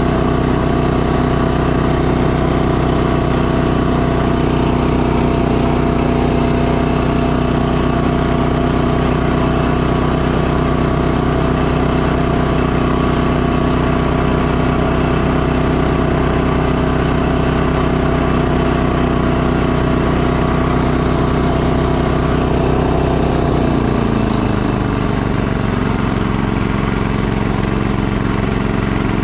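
Two-stage snowblower's small gasoline engine running steadily under load while its auger and impeller throw snow out of the chute. About five seconds before the end, the engine note drops to a lower pitch and stays there.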